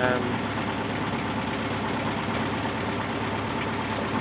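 Small sailboat's engine running steadily at low cruising speed, pushing the boat slowly along the river.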